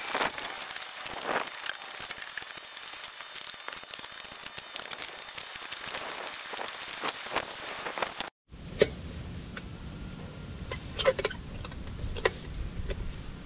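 Thin black steel stovepipe being handled and pressed together along its snap-lock seam: a dense run of metallic clicks and crinkles. After a brief break, a few separate sharp metal clicks follow.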